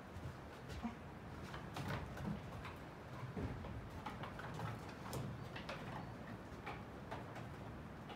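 Sheep's hooves tapping and knocking on a slatted wooden floor as it walks and shifts about: irregular sharp clicks every half second or so.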